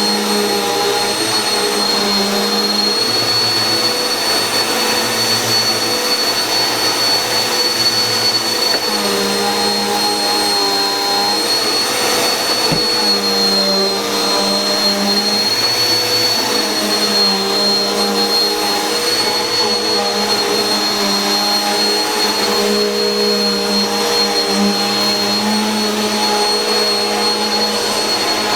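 Bissell PowerForce Helix bagless upright vacuum cleaner (model 1700) running steadily, its motor giving a constant high whine over a low hum whose pitch wavers slightly every few seconds.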